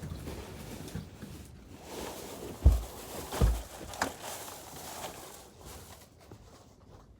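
Handling noises: light rustling with two dull, heavy thumps about two and a half and three and a half seconds in, then a short sharper rustle.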